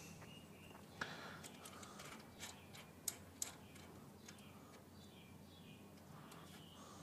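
Faint, sharp clicks and ticks of small metal parts being handled as a breather bolt and its spacers are fitted by hand on a Harley Twin Cam engine's air cleaner. There are a handful of clicks between about one and three and a half seconds in.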